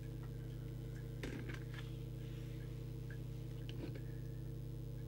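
A steady low electrical hum from the bench equipment, with a few faint clicks and taps about a second in and again near four seconds.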